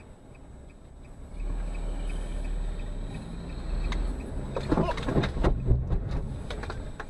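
Car driving, its low road-and-engine rumble starting about a second in, with a cluster of sharp knocks and bangs in the middle.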